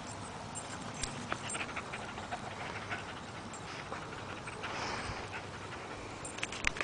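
Small white dog panting close to the microphone, mouth open, with a few light clicks and taps scattered through.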